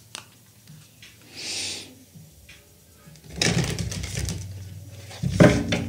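A deck of tarot cards being shuffled by hand: a papery rustling and fast fluttering riffle that starts about three seconds in and is loudest near the end.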